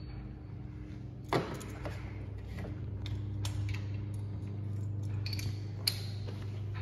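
Scattered light metallic clicks and clinks as a small chrome part and its bolts are handled and fitted by hand against a V8 engine block, over a steady low hum.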